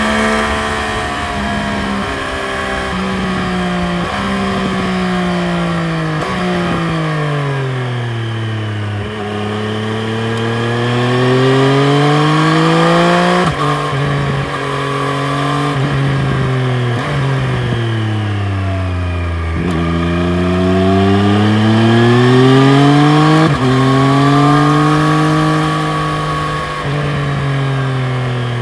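2020 Triumph Street Triple RS's 765 cc inline three-cylinder engine under way, the revs sinking as the bike slows and climbing again under acceleration, over several cycles. Each climb ends in a sudden drop in pitch at a gear change.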